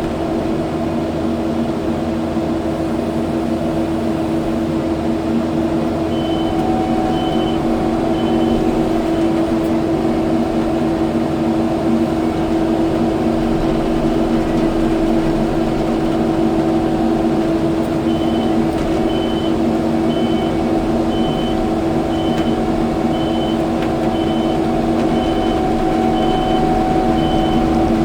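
Kubota skid steer's diesel engine running steadily under work. A backup alarm beeps at an even pace for a few seconds about a quarter of the way in, and again through the last third as the machine reverses.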